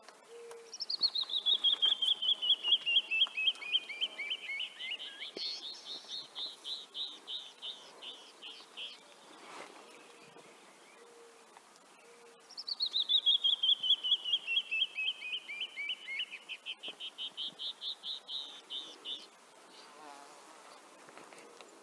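Canyon wren singing: two songs, each a fast cascade of clear whistled notes that slide down in pitch, then a run of notes that climbs back up and stops. The second song comes about eleven seconds after the first.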